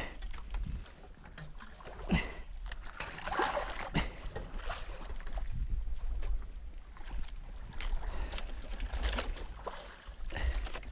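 Sea water sloshing and splashing against the hull of a small outrigger boat as it rocks on the swell, with irregular knocks and splashes over a steady low rumble.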